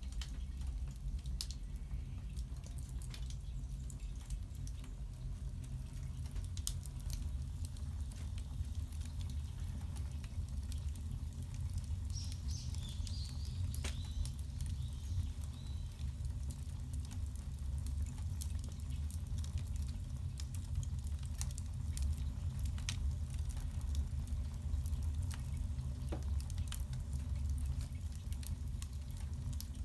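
Firewood burning in the firebox of a wood-fired bath heater: scattered crackles and pops over a steady low rumble.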